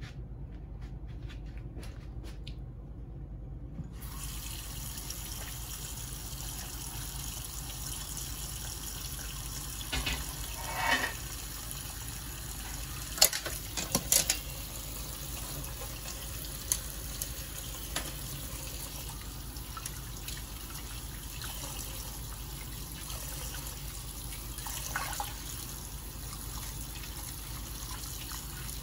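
Kitchen tap running into a stainless steel bowl of parboiled beef chunks in the sink, rinsing the meat clean of boiled blood and scum; the water comes on about four seconds in and runs steadily. A few sharp clinks and knocks cut through the flow, the loudest a little under halfway through.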